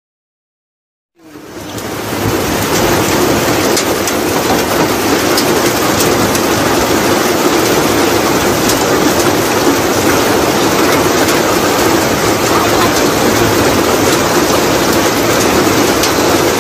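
Steady rain falling, an even hiss with faint scattered patters, fading in after about a second of silence.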